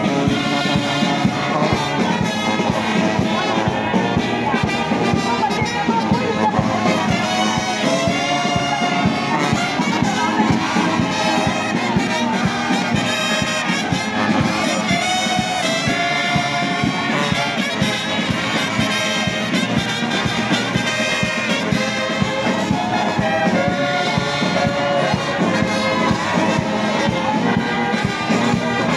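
Brass band playing a tune, with trumpets, trombones, sousaphones and bass drums.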